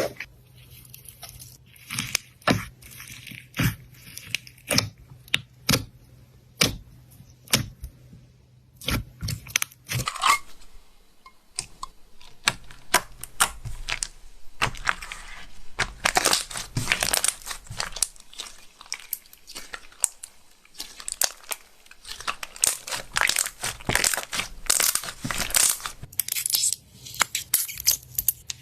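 Slime being squeezed and poked by hand, giving irregular sticky pops and clicks that thicken into dense crackling about midway and again near the end.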